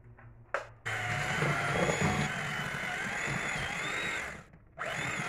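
A click, then an electric hand mixer starts just under a second in and runs with a steady whine, its beaters working through cake batter in a steel bowl. It cuts out briefly near the end and starts again.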